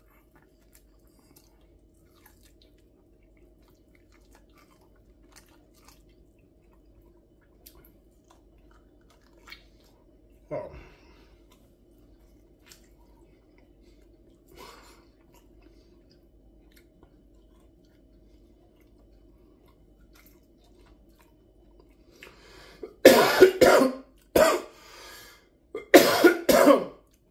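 Faint chewing, then near the end a man coughing hard four times in a row, set off by the heat of the hot sauce on the rib he is eating.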